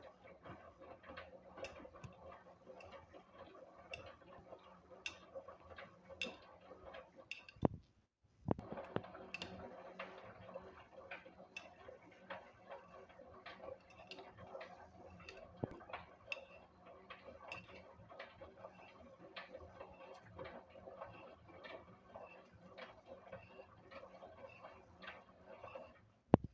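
LG WD-1054FB front-loading washing machine running, with a steady hum overlaid by many irregular light ticks and clicks. There is a brief stop about eight seconds in.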